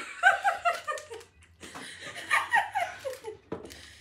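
Women laughing in two bouts of quick, repeated ha-ha syllables: one bursts out right at the start, and a second comes about a second and a half in.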